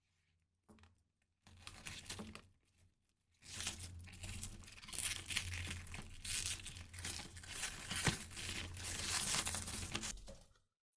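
Crackling ground-fountain firework (a 'jet crackle') burning: a couple of short spurts of crackle, then from about three seconds in a continuous dense crackling hiss that cuts off shortly before the end.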